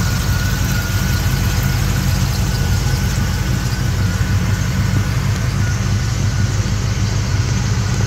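1955 Chevy Bel Air's 327 small-block V8 idling steadily, with a faint steady whine above the engine note.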